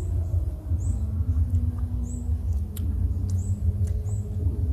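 A steady low rumble, with short high chirps from a small animal repeating evenly about every two-thirds of a second.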